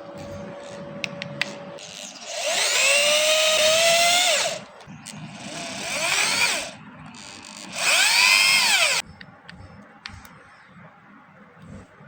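Electric hand drill whining in three short runs: it spins up, holds, and winds down each time, and the third run stops abruptly. It is winding brass wire into a spring.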